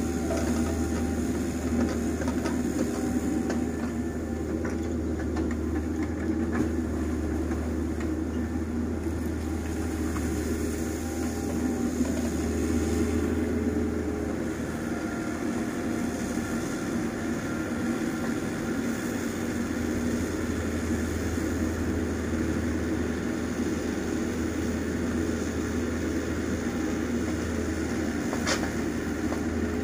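Mini excavator's diesel engine running steadily at work, a low continuous drone that eases briefly about halfway through.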